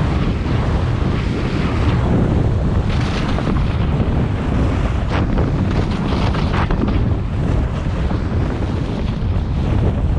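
Wind buffeting a GoPro's microphone during a downhill ski run, with the hiss and scrape of skis turning on packed snow swelling a few times.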